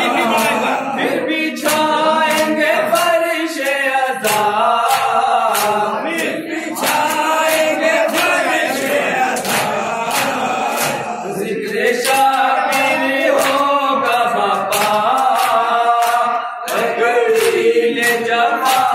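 Several men chanting an Urdu noha (Shia lament) into microphones, with a steady beat of sharp hand-slaps from matam (chest-beating) about every two-thirds of a second.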